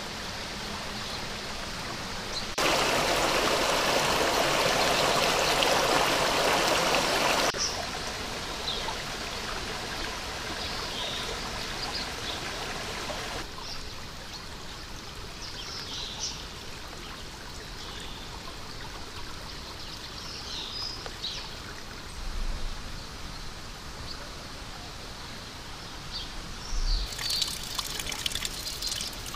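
Small forest stream flowing and trickling over rocks, louder for about five seconds near the start. Scattered brief bird chirps sound over it later on.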